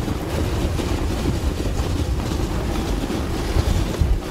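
Wind buffeting the microphone over the steady hiss and rumble of a moving dog sled gliding over snow.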